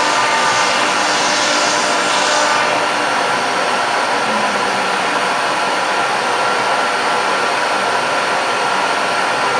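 CNC router spindle running steadily with its bit cutting into a wooden door: a loud, even noise with a faint high whine. The sharper cutting hiss eases about two and a half seconds in.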